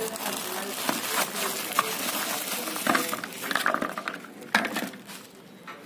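Clear plastic bag crinkling while black plastic bike grill covers are handled and knock against one another and the table, with several sharp clicks among the rustling. It quietens near the end.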